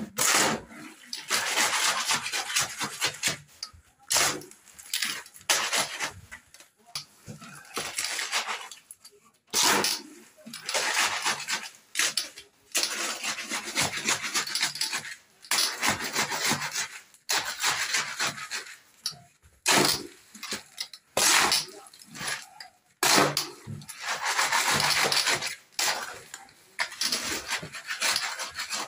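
Steel shovel scraping and turning wet concrete mix by hand on a concrete floor, in repeated rasping strokes of a second or two each with short pauses between.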